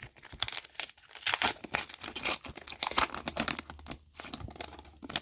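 A trading-card pack wrapper being torn open and crinkled by hand, with irregular crackling and tearing that stops near the end.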